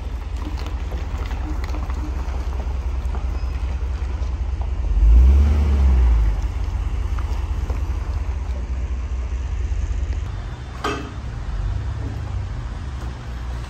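Truck engine idling with a steady low rumble, swelling louder for about a second around five seconds in. A single sharp knock comes about eleven seconds in.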